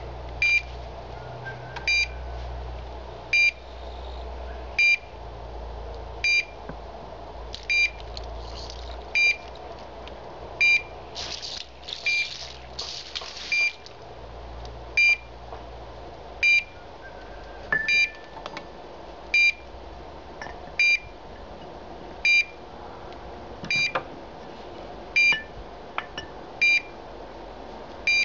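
Low-frequency pipeline-pig locator beeping evenly, one short high beep about every one and a half seconds, each beep marking a received pulse from a ПНТ-00 low-frequency transmitter, which shows the transmitter is working. A few seconds of rustling noise come about eleven seconds in.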